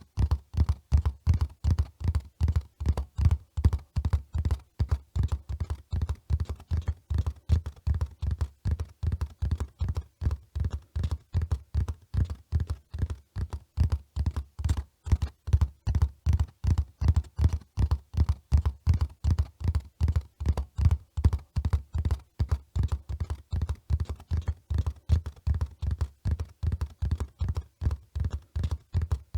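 Horse hooves running: a steady, fast rhythm of dull low thuds, several beats a second.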